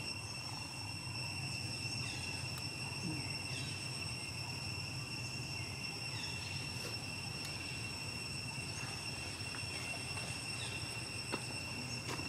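Steady high-pitched insect drone, holding a few constant whining tones, over a low outdoor rumble, with faint short chirps about once a second.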